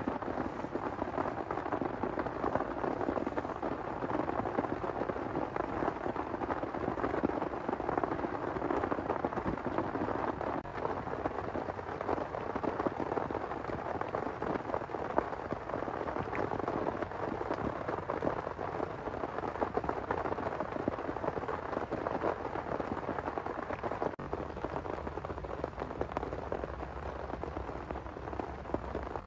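Heavy rain falling steadily, a dense crackle of drops. A low rumble of thunder builds near the end.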